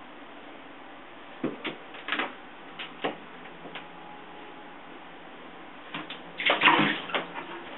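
A Savannah F2 cat playing in a bathtub: scattered taps and knocks, then a louder clatter of several quick hits about six and a half seconds in.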